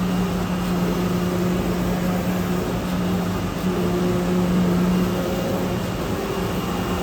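CNC oscillating knife cutting machine running: a steady, even hum with a constant low drone, its fainter higher tones fading in and out.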